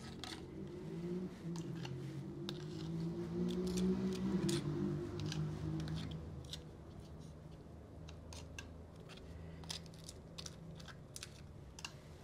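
Spoon scraping and tapping against crisp fried masa cups as guacamole is spooned in, giving scattered small crackles and clicks. A low droning hum swells and then fades out about halfway through.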